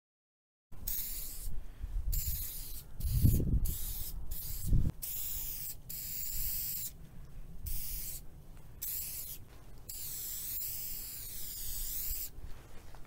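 Aerosol spray paint can hissing in a series of short and longer bursts as a tag is written, the hiss wavering as the nozzle moves, with two low bumps about three and five seconds in.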